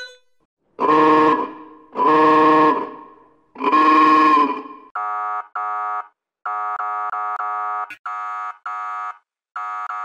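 Police truck horn edited as a sound effect: three long pitched blasts, each about a second and ringing on after it stops. About halfway through it gives way to a police bus horn honking in quick, short, stuttering beeps.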